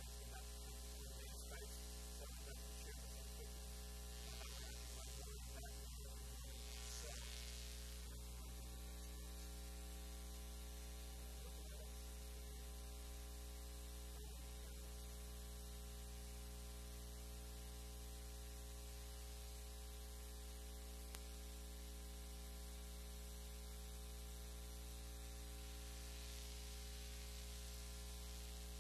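Steady electrical mains hum with a stack of even overtones, over a faint hiss.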